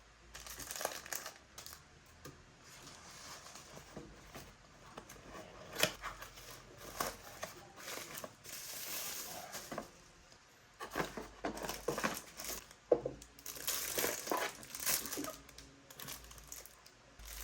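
Packaging being handled: crinkling and tearing in irregular rustles, with a few sharp clicks.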